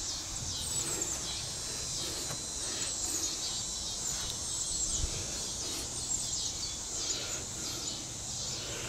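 Outdoor ambience of small birds chirping again and again over a steady high hiss, with one faint low knock about five seconds in.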